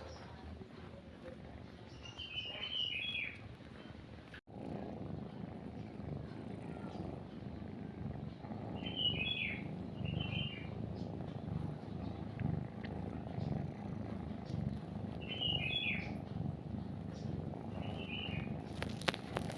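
Cat purring steadily, setting in after a brief dropout about four seconds in, with short bird chirps every few seconds over it.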